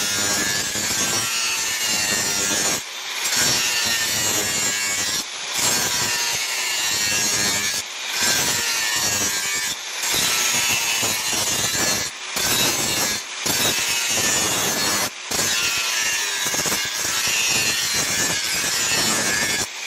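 Angle grinder with a flap disc grinding a steel knife blank, the disc running steadily against the metal, with brief breaks every second or two.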